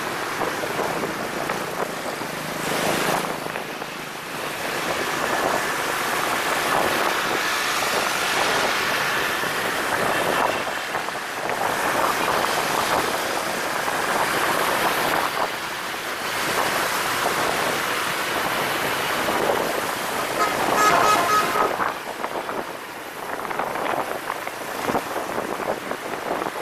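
Street traffic noise and wind rush heard from a moving motor scooter in dense motorbike traffic. About three-quarters of the way through, a vehicle horn sounds in a quick run of short beeps.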